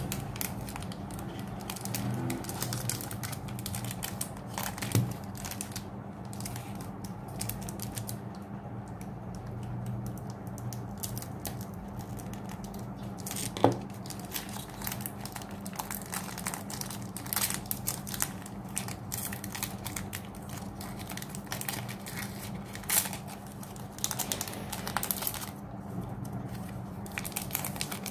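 Foil booster-pack wrappers crinkling and tearing as trading card packs are opened by hand, with a few sharper snaps, over a steady low hum.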